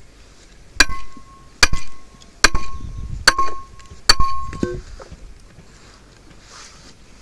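Five hard blows of a metal tool breaking firewood, evenly spaced a little under a second apart, each with a short metallic ring; the blows stop a little after the midpoint.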